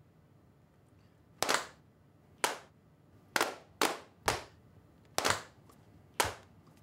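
Single sharp hand claps, about seven of them, roughly one a second and unevenly spaced, each ringing briefly.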